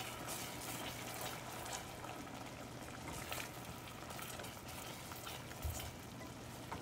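Strawberry jam simmering quietly in a stainless steel saucepan, bubbling softly while a wooden spoon stirs through the fruit, over a faint steady hum.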